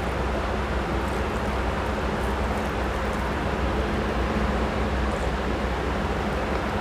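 Steady rushing background noise with a low hum underneath, unchanging throughout; no separate eating sounds stand out from it.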